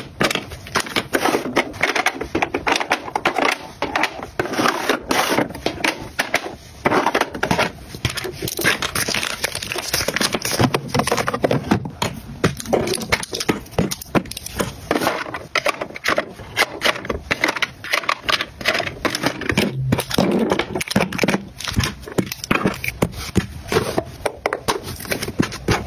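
Cosmetics, makeup brushes and plastic cases being picked up, sorted and set down on a tabletop: a quick, uneven run of plastic clicks, taps and light rattles. A clear acrylic drawer is pulled open near the end.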